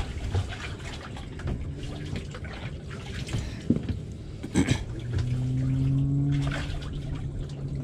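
Water sloshing and splashing in a boat's livewell as hands work in it, with two sharp knocks against the hatch about halfway through. A steady low hum comes in for a couple of seconds near the end.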